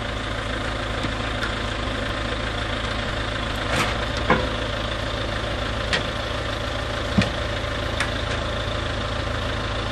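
Heavy diesel engine of logging equipment idling steadily, with a handful of sharp metallic clicks and knocks scattered through.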